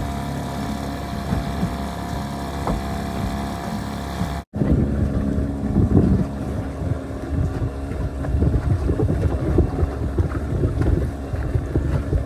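Outboard motor running steadily. About four and a half seconds in, the sound drops out for a moment, and then wind buffets the microphone over the motor's hum.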